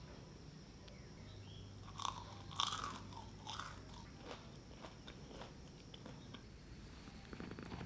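Crisp fried churro being bitten into, with a few loud crunches about two seconds in, followed by softer crunches of chewing, about two to three a second.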